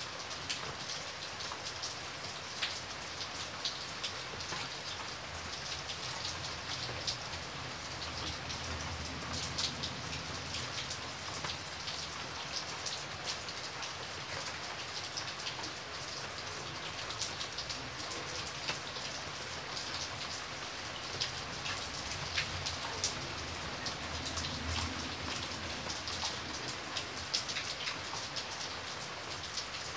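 Steady rain falling, an even hiss with many close, distinct drops ticking sharply through it.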